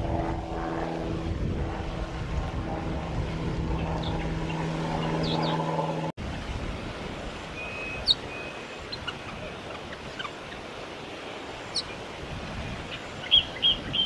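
A steady engine drone, like a distant propeller aircraft, stops abruptly about six seconds in. Then there is outdoor wind noise with a few short, high chirps of white-plumed honeyeaters, the loudest cluster near the end as an adult comes to the nest with chicks.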